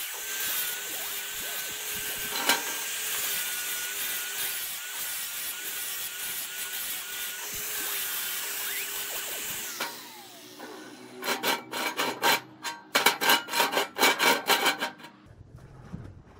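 Angle grinder grinding a weld on steel square tubing: a steady whine over a harsh grinding hiss. About ten seconds in it stops and the pitch falls as the disc spins down. A rapid run of sharp clicks and knocks follows for a few seconds, louder than the grinding.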